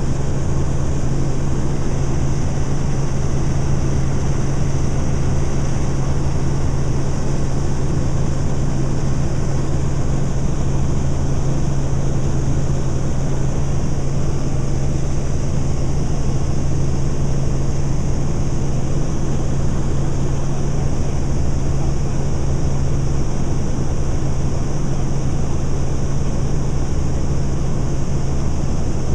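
Helicopter noise heard inside the cabin in flight: a steady, loud drone of rotor and engine with a strong low hum and a hiss above it.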